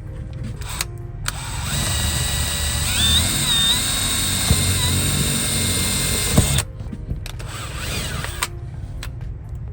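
Power drill boring the mounting holes into the wall: one run of about five seconds with the motor pitch shifting up and down as it bites, cutting off, then a second, shorter burst.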